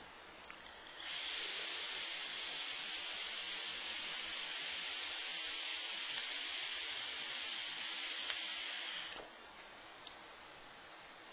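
Grand Vapor Trident dripping atomizer firing its low-resistance coil through a long drag of about eight seconds: a steady hiss of air drawn through the drip tip and e-liquid vaporising on the coil and silica wick. It starts about a second in and stops about nine seconds in.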